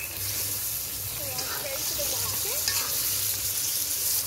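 Duck curry sizzling in a two-handled pot over a wood fire while a metal spoon stirs and scrapes through the pieces. The sizzle is a steady hiss.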